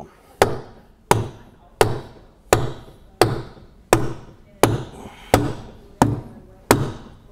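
About ten evenly spaced sharp blows, roughly one every 0.7 seconds, struck at the foot of a wooden temporary jack post. They knock it loose so the roof weight comes down onto the new aluminum column.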